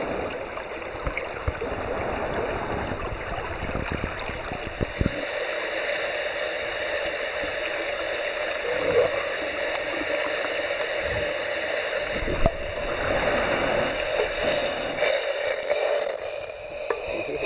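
Steady rushing of flowing water, like a stream, with a few light clicks and knocks.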